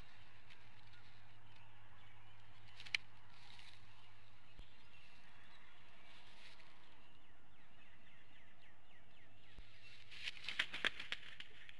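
Bald eagle calling from the nest: one sharp high note about 3 s in, then a quick series of about six sharp, high-pitched calls near the end. Underneath runs a steady low hum, with faint high chirping in the background.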